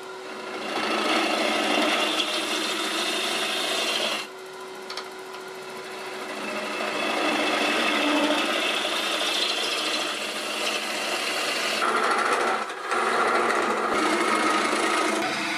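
Bowl gouge cutting into a spinning ash bowl blank on a wood lathe, hollowing the inside: a continuous scraping hiss of wood being shaved. The cut eases off about four seconds in and builds back, and breaks briefly once more near the end.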